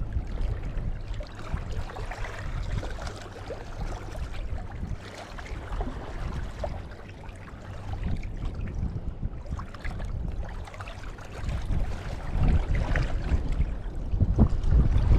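Wind buffeting the microphone: an uneven low noise that comes in gusts and grows louder over the last few seconds.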